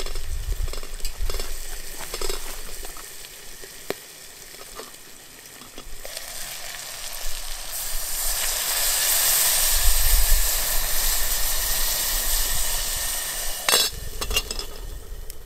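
Wood campfire crackling under a lidded metal pot, then from about six seconds in a hissing sizzle builds up and holds as the pot steams heavily over the flames. A sharp crack from the fire near the end.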